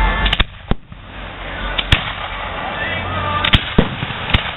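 Aerial fireworks shells bursting overhead: a string of sharp, irregularly spaced bangs, about seven in all, two of them close together near the start, over a steady background rumble and hiss.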